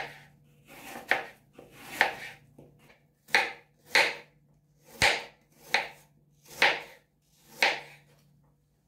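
Kitchen knife slicing peeled apples into wedges on a bamboo cutting board: about nine cuts, roughly one a second, each a short crisp stroke of the blade through the apple onto the board.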